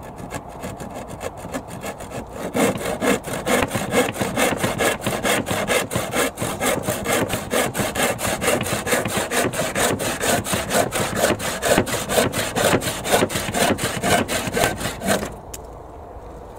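Stanley handsaw cutting through a pallet-wood picket in quick, even back-and-forth strokes. It starts softly, gets louder about two seconds in, and stops near the end.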